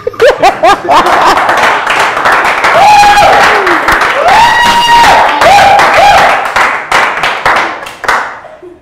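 Studio audience laughing, clapping and whooping, with several long held shouts over the clapping. The noise dies away near the end.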